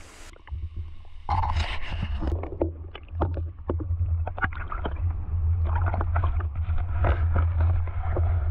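Choppy water lapping and splashing against a camera held at the water's surface: many small irregular splashes over a steady low rumble.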